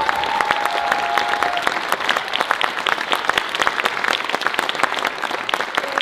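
Audience applauding with dense, steady clapping. A held musical note fades out during the first second and a half.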